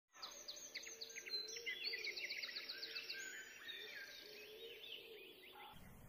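Several birds singing at once: rapid high chirps and trills over a lower warbling call, cutting off abruptly near the end.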